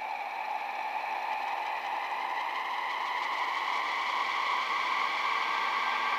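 Hissing static, like an untuned radio, with a few faint held tones in it, slowly swelling louder.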